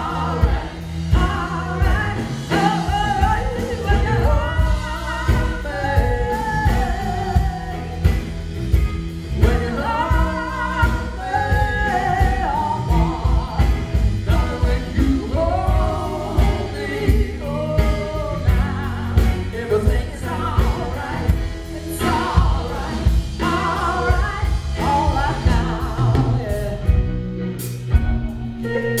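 A live band playing: a woman singing lead over electric guitars, bass guitar and drums.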